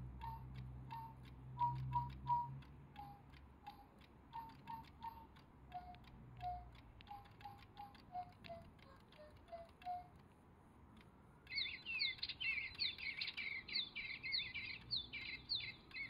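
DigiBirds electronic toy birds piping a simple tune of short whistled notes over a steady ticking. After a short pause they break into louder, rapid, high electronic chirping and tweeting.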